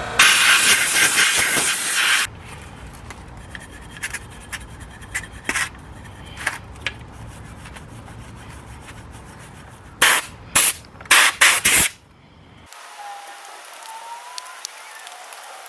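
Aerosol spray can hissing in one long burst of about two seconds. Then come scattered clicks and handling noises, and a run of four or five short spray bursts about ten seconds in.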